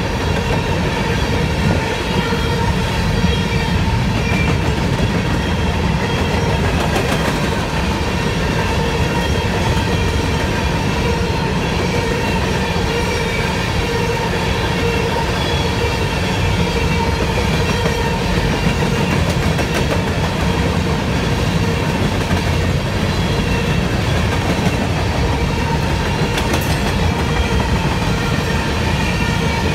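CSX freight train of covered hopper cars rolling steadily past at close range, wheels running on the rails with a continuous low rumble and steady tones above it.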